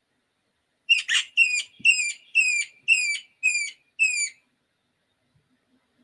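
Recorded Canada jay calls played back from the Merlin Bird ID app on a phone: a run of about eight short, high whistled notes, about two a second, each dropping slightly in pitch. They start about a second in and stop a little past the middle.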